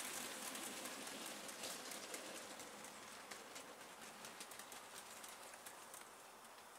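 OO gauge model freight train of slate-loaded wagons running on track, a rapid, irregular clicking of wheels over the rails and rail joints that fades steadily as the train goes into the tunnel.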